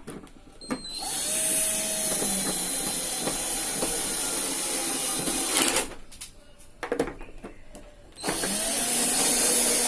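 Electric drill-driver running in two long bursts, the second starting about eight seconds in, each spinning up with a brief rising whine, while fastening a water heater's casing back together.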